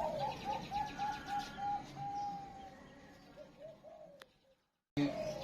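Zebra dove (perkutut) cooing: a run of short rapid notes, about three a second, with one longer held note about two seconds in, then a few fainter notes. The sound cuts out for about half a second near the end.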